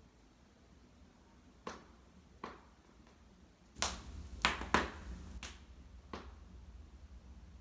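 Wood fire in a fireplace crackling: scattered sharp pops, then a quick run of louder pops about four seconds in over a low rush of the flames.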